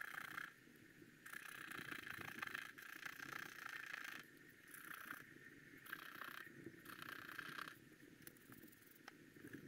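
Wooden stylus scratching the black coating off a scratch-art card in a run of short dry strokes, a faint scraping that gives way to quieter hiss about eight seconds in.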